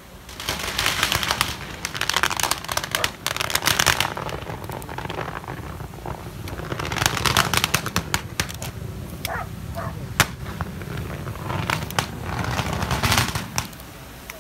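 Strings of firecrackers going off in rapid crackling volleys, in several bursts with lulls between them, and one sharp single bang about ten seconds in.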